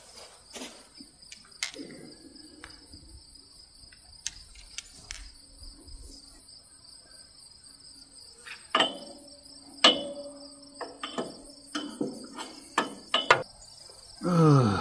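Insects in the grass chirring steadily in two high tones, with scattered metallic clicks and clinks of a socket wrench being worked on a bolt under the chipper shredder, the loudest about nine and ten seconds in and a quick run of them later on. A man's voice sounds briefly near the end.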